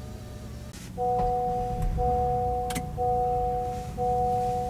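Honda Ridgeline's dashboard warning chime with the ignition switched on: a steady two-note tone that sounds for about a second, breaks off briefly and repeats, starting about a second in and sounding four times.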